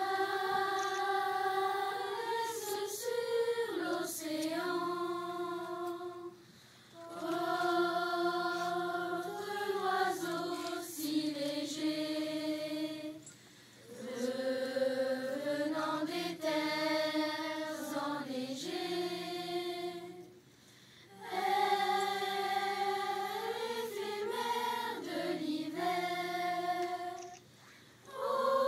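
A choir of seventh-grade children singing a slow farewell song unaccompanied, in long held phrases with a short break for breath about every seven seconds.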